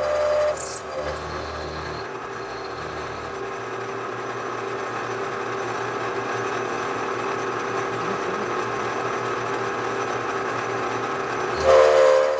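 Bridgeport milling machine running, a steady pitched mechanical whine. A louder whine stops about half a second in and comes back abruptly near the end, as the machine's load changes.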